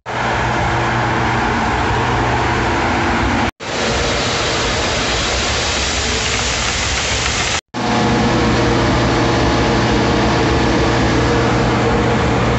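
Steady drone of a grain semi and the dump-pit machinery running as corn pours out of the hopper trailer's bottom gate through the pit grate, a low hum under an even hiss. It breaks off abruptly twice.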